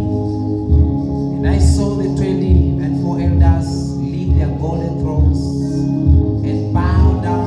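Gospel worship music: held keyboard-like chords over a steady low beat, with short sung phrases from a voice a few times.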